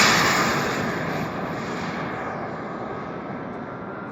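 Swiwin 190 turbine of an RC model jet passing close and fading away, a loud rush of jet noise that dies down steadily, leaving a thin high turbine whine near the end.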